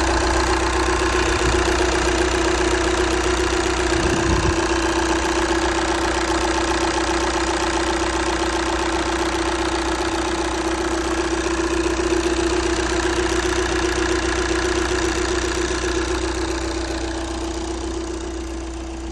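Volkswagen 2.0 TDI four-cylinder turbo diesel idling steadily, smooth and without the shake of a misfire now that the fault is fixed. There is a brief low thump about four seconds in.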